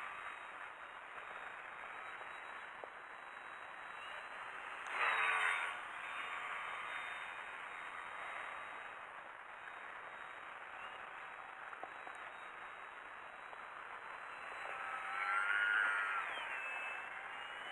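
Electric motor and propeller of a small foam-board RC Sbach 342 aerobatic plane flying overhead, a buzzing whine. It swells sharply as the plane passes close about five seconds in, and again more slowly near the end, falling in pitch as it goes by.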